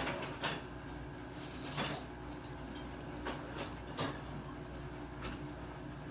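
A few light knocks and a brief scrape over a steady low hum.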